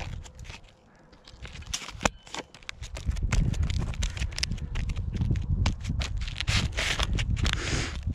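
Gloved hand pressing, patting and rubbing asphalt shingles down onto fresh roof sealant: scattered taps and clicks, with rasping scuffs of the glove on the gritty shingle surface, longest near the end, over a low rumble.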